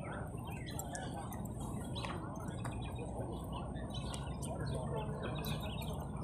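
Small birds chirping over and over in short calls, over a steady low rumble of outdoor background noise.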